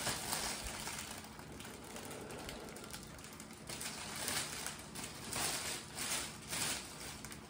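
Clear cellophane wrap crinkling and rustling in irregular bursts as a large sheet is unfolded and smoothed flat on a countertop.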